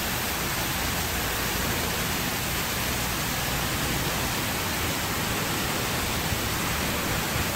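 Steady rush of a pump-fed artificial waterfall, with water cascading down a rock face into a pool.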